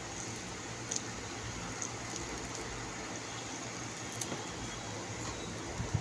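Steady hum and hiss of an electric fan running, with a few faint clicks from chicken being picked apart and chewed by hand.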